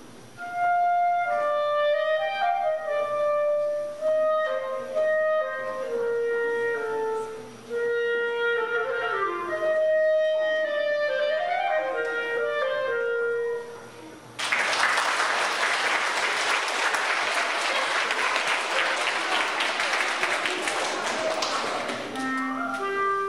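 Solo clarinet playing a short melody with quick rising and falling runs, followed by about eight seconds of audience applause. Low woodwind notes start up again near the end.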